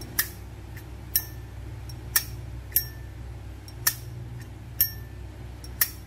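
A 24K gold-plated Zippo Armor lighter's lid clicking open and snapping shut over and over: about seven sharp metallic clicks, each with a short bright ring, roughly one a second.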